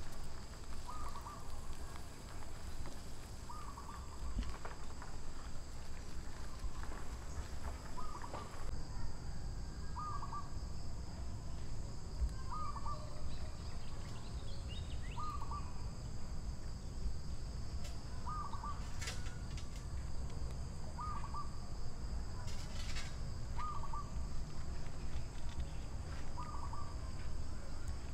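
A bird repeats a short call about every two and a half seconds, over a steady high insect drone and a low rumble.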